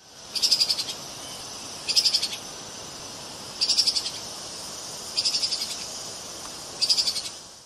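Treeshrew (Tupaia) calling: five short, high trills made of rapid pulses, about one every one and a half seconds, over a steady faint hiss.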